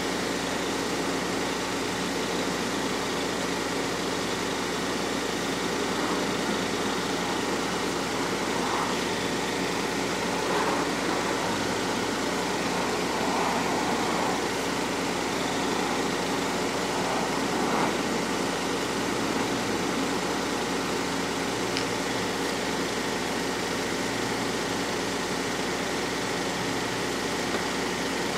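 A motor vehicle's engine idling with a steady drone.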